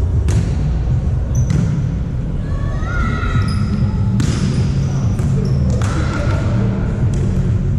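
Volleyball being hit in an indoor sports hall: four sharp ball strikes that echo in the hall, short squeaks between them, over a constant low rumble of voices and hall noise.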